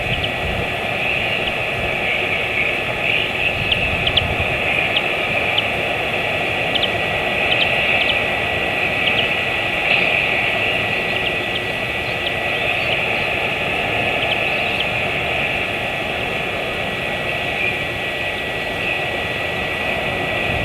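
Steady background hiss from the live nest camera's microphone, with a faint constant whine and a few faint scattered ticks over the first three quarters.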